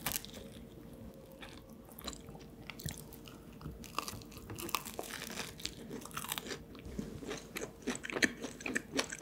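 Close-miked biting and chewing of canelé pastries: the caramelised crust crunching in a run of small sharp bites, more frequent in the second half.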